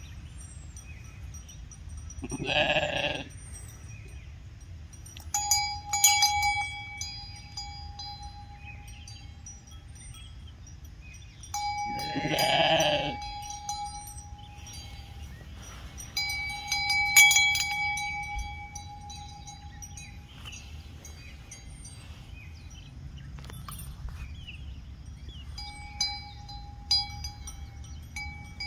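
Hair sheep bleating twice, once about 2.5 seconds in and once about 12 seconds in. Between the bleats a small metal bell on a sheep's collar rings out four times in clear sustained tones.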